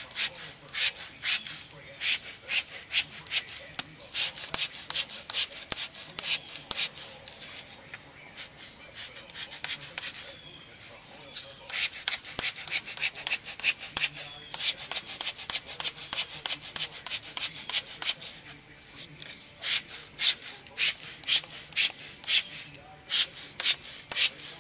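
Hand trigger spray bottle squirting wheel cleaner onto an alloy wheel: quick short spritzes, several a second, in runs with a couple of brief pauses.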